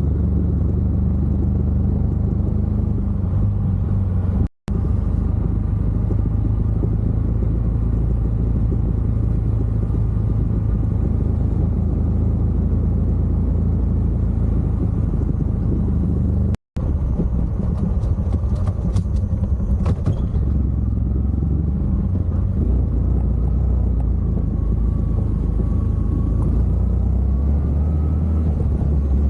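Honda 125 moped's single-cylinder four-stroke engine running steadily while riding, with road and wind noise. The sound drops out for an instant twice, about four and a half and sixteen and a half seconds in.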